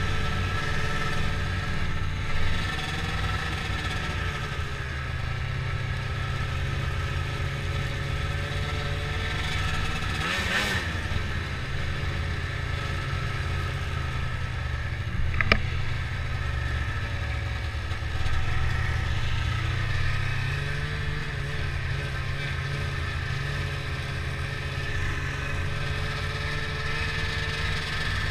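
Ski-Doo snowmobile engine running while riding at low speed, its pitch rising and falling gently as the throttle is eased on and off. A sharp click a little past the middle.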